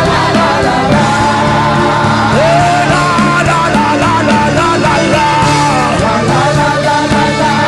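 Worship music: sustained instrumental chords under loud singing voices, with some shouting.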